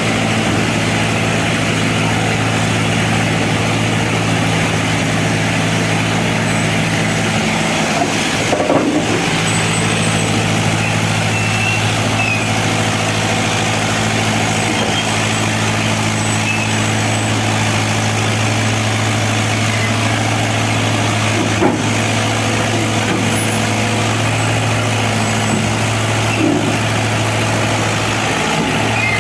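Heavy diesel engine of earthmoving equipment running steadily at low revs, with a few brief knocks, the clearest about a third of the way in and again later on.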